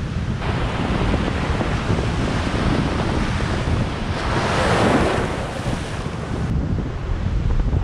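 Ocean surf breaking and washing up the beach, with wind buffeting the microphone as a low rumble. A wave breaks loudest about five seconds in.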